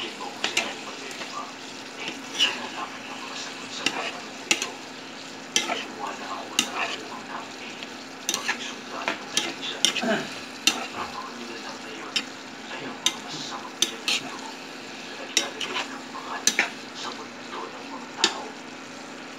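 Tofu and canned tuna sizzling as they fry in a pan, stirred with a utensil that knocks and scrapes against the pan every second or so.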